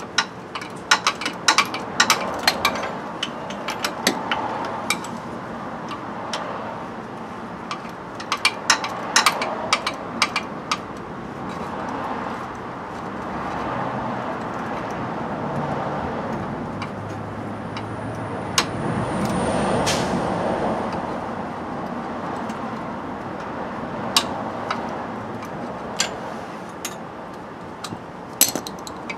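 Quick runs of sharp metallic clicking as a jack is worked under the Jeep's front end, stopping and starting. Between the runs there is a steady rushing noise that swells and fades around the middle.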